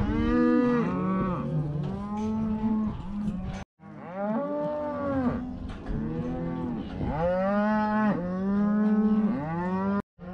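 A herd of cattle mooing, many overlapping calls one after another with no break. The sound cuts out completely for a moment twice, at about four seconds and just before the end.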